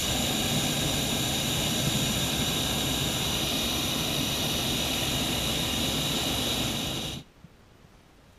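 Hot-air balloon's double propane burner firing one long blast of about seven seconds, a loud steady rushing noise that starts and cuts off abruptly. The blast heats the air in the envelope to make the balloon climb.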